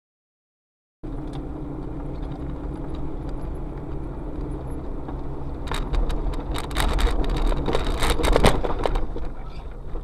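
Car running, heard from inside the cabin through a dashcam microphone: a steady low engine and road rumble that starts about a second in, with a rapid run of sharp clicks and knocks from about six to nine seconds in.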